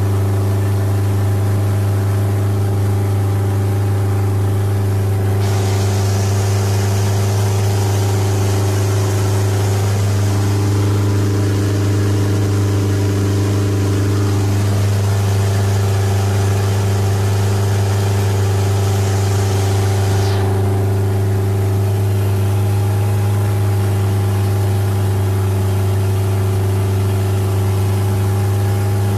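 Inboard engine of a wooden hua-chik passenger boat running steadily under way, a constant low drone. A higher hiss joins in from about five seconds in and stops about twenty seconds in.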